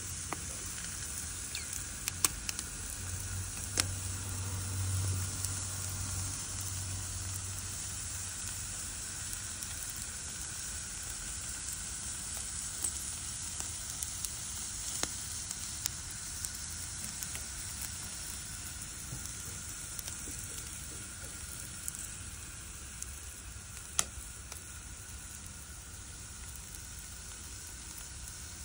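Whole squid sizzling on a hot metal grill grate: a steady hiss broken by a few sharp pops and crackles.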